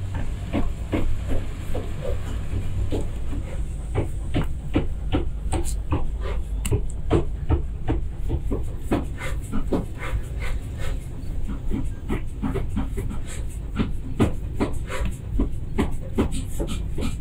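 Workshop background: a steady low hum with frequent irregular light knocks and clinks.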